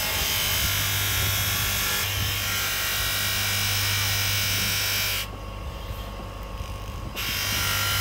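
Electric motor driving a cloth buffing wheel, humming steadily, with the loud hiss of a metal door handle being polished against the spinning wheel. The hiss drops away for about two seconds just past the middle, leaving the motor hum, then comes back.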